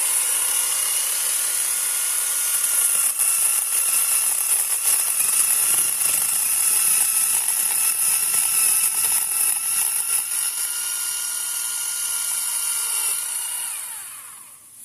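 Battery-powered electric chainsaw running at full speed with a steady high whine, cutting through a small tree trunk. Near the end the trigger is released and the motor winds down, its pitch falling as it fades out.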